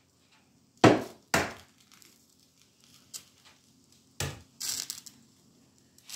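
An egg being cracked: two sharp knocks about a second in, another knock past the middle, then a brief crackle of shell being pulled apart.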